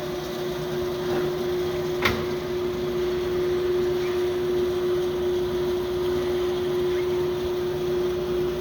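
Roll-In EF1459 vertical bandsaw running, a steady machine hum with one constant tone. A single sharp click about two seconds in.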